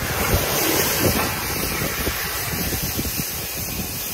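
Self-inflating life raft's compressed-gas cylinder hissing steadily as the raft fills with gas.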